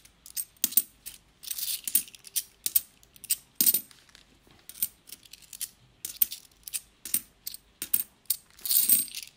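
A handful of 50p coins clinking against one another as they are sorted in the fingers and set down on a paper album sheet. It is an uneven run of sharp metallic clicks, with a brief sliding scrape about a second and a half in and again near the end.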